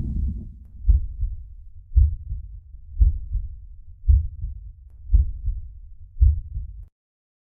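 Slow, deep thuds about once a second, six in all, each dying away quickly, over a low rumble that fades in the first half-second; the sound stops abruptly near the end.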